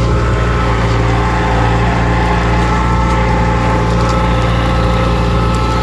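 John Deere tractor engine running steadily under load while pulling a plough through the field, its engine note holding an even pitch.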